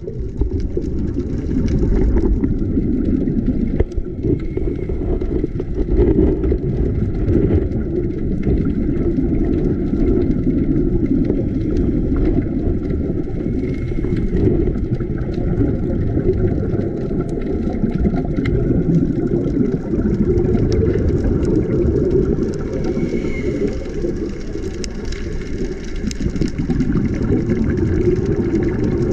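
Steady, muffled low rumble of water noise picked up by a GoPro inside its underwater housing, with a few faint clicks.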